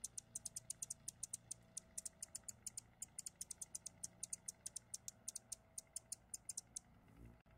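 A rapid, irregular series of short, high-pitched ticks, several a second, over a faint low hum; the ticking stops about a second before the end.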